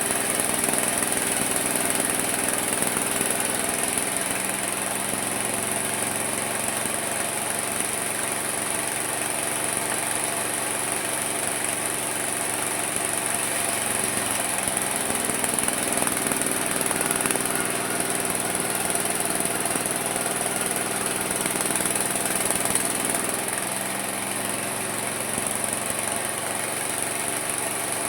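Homemade mini sawmill's saw running steadily, its pitch dipping twice, about halfway through and near the end, as it takes load in the wood.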